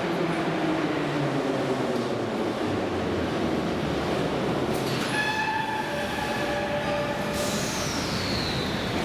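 Metro train running with a steady rumble and a falling motor whine. From about five to seven seconds in there is a cluster of steady high squealing tones, then a high whine glides down near the end as the train slows.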